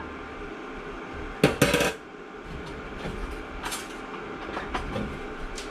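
Cutlery clattering as a fork is fetched: a loud burst of metal clinks and knocks about a second and a half in, then a few lighter clicks.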